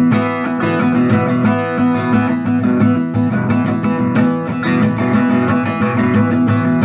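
A guitar strummed in a steady rhythm, with no singing.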